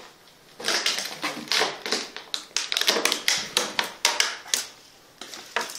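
Footsteps climbing a staircase: a quick run of sharp steps and scuffs starting about half a second in and stopping shortly before the end, with a couple of last steps near the end.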